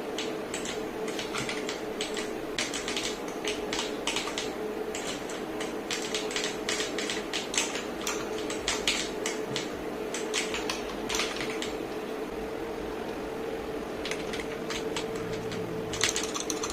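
Akko 5075S mechanical keyboard being typed on in gameplay: irregular clusters of key clicks and clacks, some fast runs of keystrokes, over a steady low hum.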